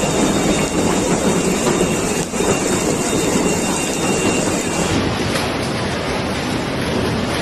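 Heavy rain and hail pelting down in a windy storm: a loud, dense, steady clatter of countless small impacts. The sound changes abruptly about five seconds in, becoming duller.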